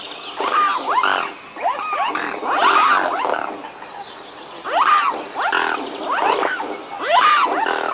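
Several swans calling over one another in bursts of pitched calls that rise and fall. The calls ease off briefly about a second and a half in, and again about four seconds in.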